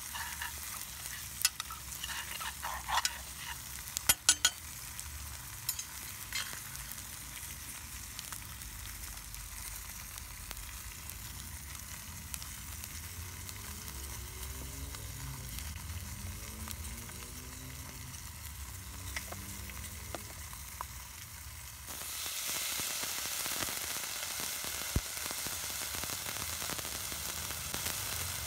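Wild rice toasting in a hot enamelled cast-iron Dutch oven, sizzling steadily, with a metal slotted spoon clicking and scraping against the pot during the first few seconds of stirring. About three-quarters of the way in the sizzle jumps suddenly louder and hissier as liquid goes into the hot pot.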